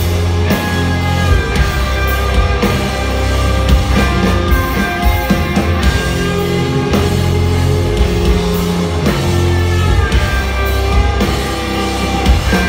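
Rock band playing live and loud, heard from within the crowd: electric guitars, bass and drums, with held chords over a steady run of drum hits.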